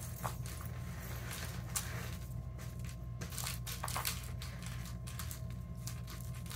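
Irregular light clicks and plastic rattles from a circle-track cat toy with a ball and a feather on a wire, batted by a kitten, over a steady low hum.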